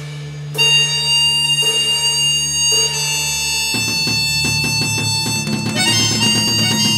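Instrumental background music: a held low drone under long high notes, with regular strikes about once a second, getting louder about half a second in. Just past halfway it changes to a quicker pulsing rhythm in the low notes.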